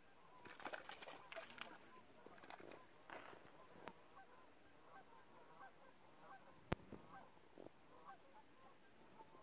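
Faint, distant chorus of cranes and ducks calling over open water, many short overlapping calls. A single sharp click comes about seven seconds in.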